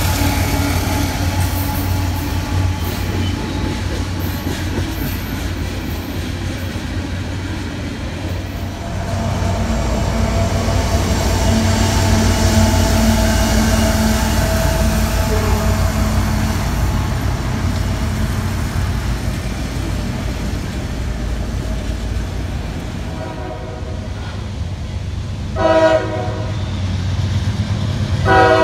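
A CSX freight train passing close by: its diesel locomotives running and the wheels clattering over the rails. Near the end, with the track clear, a locomotive horn gives a short blast and starts another. The horn comes from the next train approaching, led by a GE C40-8W.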